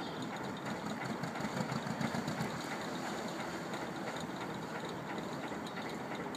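Diesel-driven paddlewheel narrowboat under way: the engine running steadily while the stern paddlewheel turns, with a fast, even mechanical clatter.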